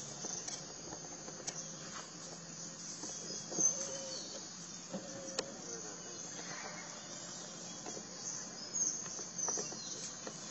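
Insects, crickets or similar, chirping steadily in a high band, with scattered light clicks and knocks; one knock about a third of the way in is the loudest.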